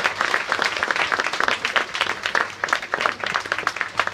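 Applause from an audience of schoolchildren, many hands clapping at once.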